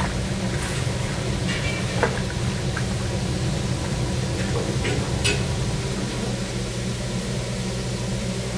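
Steady low hum and hiss of commercial kitchen equipment, with a few brief knocks around a large stainless-steel cooking kettle holding chopped chicken.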